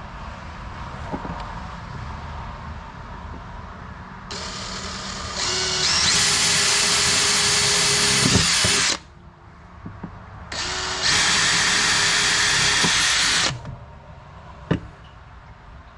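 DeWalt 20V MAX XR brushless cordless drill drilling screw holes into the fiberglass of a boat. It runs twice, about four and three seconds. The first run speeds up in steps before holding steady at full speed, and each run stops abruptly. A single click comes near the end.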